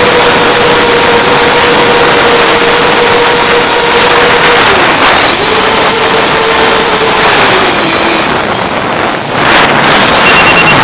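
FPV quadcopter's electric motors and propellers whining, heard close from the onboard camera. The pitch holds steady, dips and comes back up about five seconds in, eases off around eight seconds, and a loud rush of noise follows near the end.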